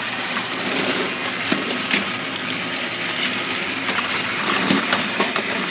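Several battery-powered TrackMaster toy train engines running on plastic track: a steady whirring of small electric motors and rolling wheels, with a few sharp clicks of plastic toys being handled.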